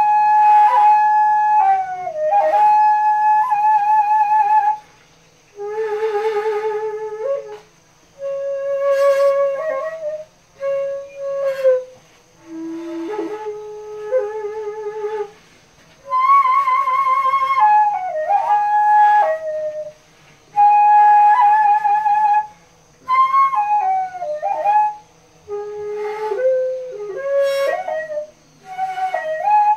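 Daegeum, the Korean large bamboo transverse flute, playing slow solo phrases. The long held notes have a wide vibrato and sliding bends between pitches, with short pauses between phrases.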